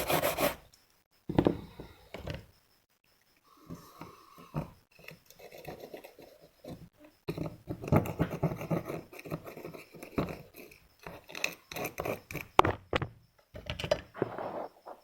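Hand tools scraping, scratching and tapping irregularly on a phone circuit board, in short strokes with brief pauses.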